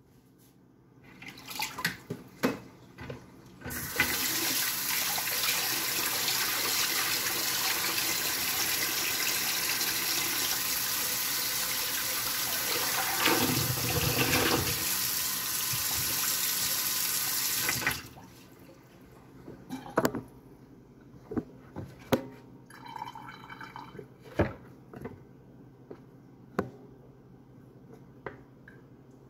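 Kitchen tap running into a sink for about fourteen seconds, then shut off abruptly. Before and after it come scattered small knocks and clicks.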